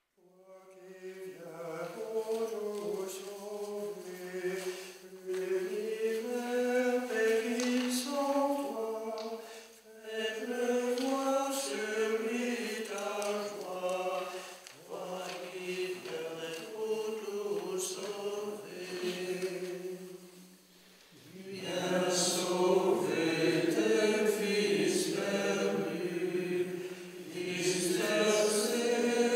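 A group of monks singing a slow chant together in phrases, starting just after the silence and pausing briefly every few seconds. After a break about 21 seconds in, the singing comes back louder.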